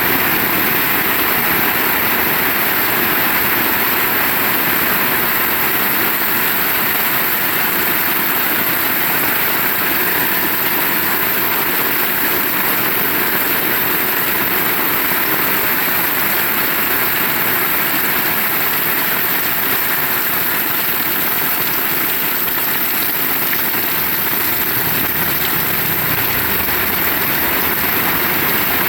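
Heavy rain falling steadily, an even, unbroken hiss with no single drops or other events standing out.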